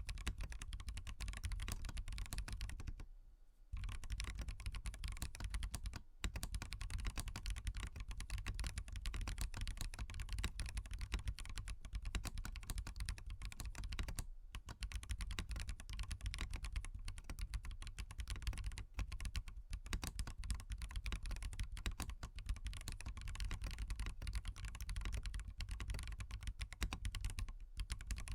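Continuous typing on a SWAGKEYS Transition Lite mechanical keyboard with Bsun Bumblebee tactile switches and no foam in the case: a dense stream of key clacks, with a short pause about three seconds in.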